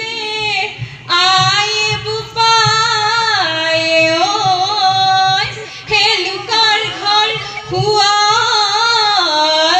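A woman singing a Jeng Bihu, an Assamese women's Bihu folk song, in long held notes that waver and glide between pitches.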